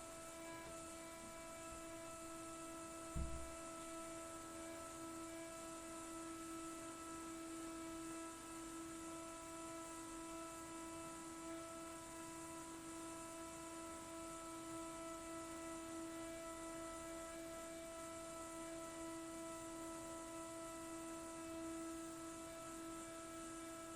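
Defective gas boiler giving off a steady hum of several held tones. A brief low thump comes about three seconds in.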